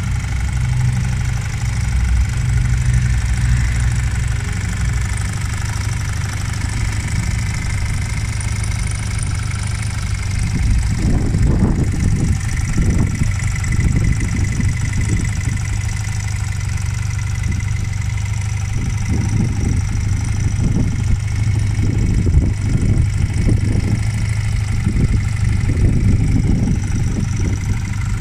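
1978 Honda CM185 Twin Star's small parallel-twin engine idling steadily. From about halfway through, irregular low buffeting comes in over it.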